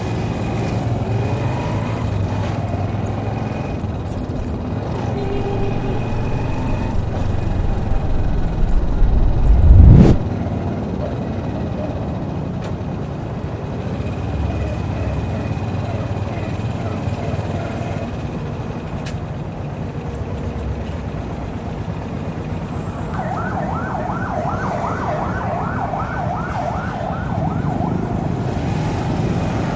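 City street traffic heard from a moving vehicle: a steady engine and road rumble with a faint high whine throughout. About ten seconds in, a deep rumble swells to the loudest point and cuts off suddenly. From about 23 to 27 seconds a quick warbling signal repeats about four times a second.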